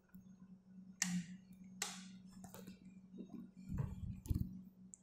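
Sharp clicks of a wall light switch being turned off, two clear clicks about one and two seconds in, then softer clicks and low thumps near the end, over a faint steady hum.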